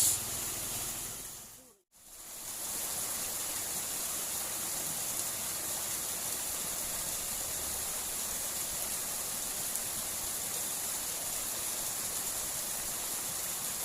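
Steady rushing of water flowing in a small irrigation ditch, broken by a brief drop to silence just under two seconds in.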